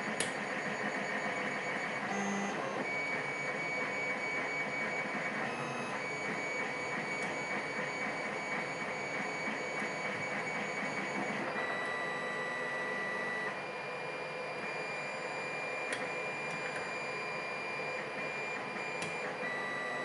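Lock pick working the pins of a pin-tumbler lock cylinder under tension, with a few light clicks over a steady hiss and a faint high whine.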